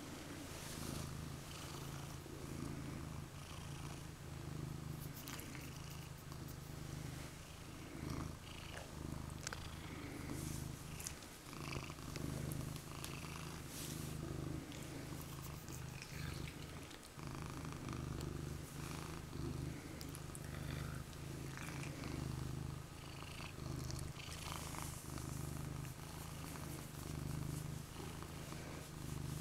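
Domestic cat purring steadily and close up: a continuous low purr with a couple of brief breaks.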